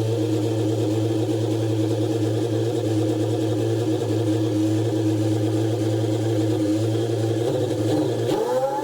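Yamaha R1 inline-four motorcycle engine running at a steady idle, its pitch rising and holding higher near the end as the revs come up.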